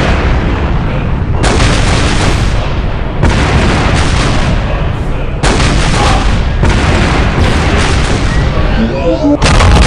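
Dense, loud barrage of dubbed-in weapon sound effects: continuous gunfire and booms, with a fresh hard-hitting burst every one to two seconds.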